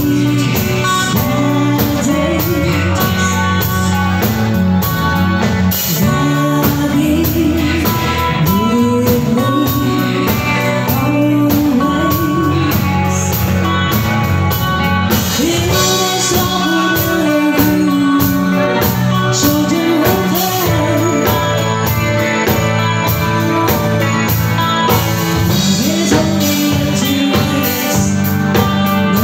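A live band playing a song at full volume: guitar and a steady backing, with a lead melody line over it.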